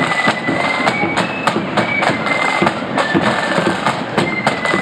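Marching flute band playing: flutes carry a high melody over snare drums and a bass drum beating a steady march rhythm.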